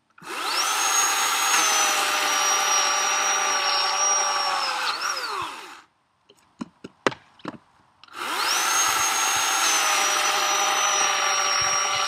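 Oregon 40-volt battery-powered chainsaw cutting a log, twice. Each time the electric motor spins up with a rising whine, runs steadily through the wood for about five seconds, then winds down with a falling whine. Between the two cuts come a few short knocks.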